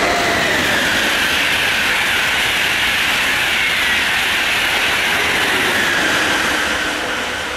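Frecciarossa high-speed train passing at speed: a loud rush of wheel and air noise with a whine that slowly falls in pitch, fading away near the end.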